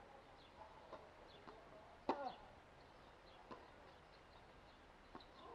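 Tennis rally: a sharp racket strike on the ball about two seconds in, the loudest sound, with a few fainter ball hits and bounces before and after it. Faint bird chirps in the background.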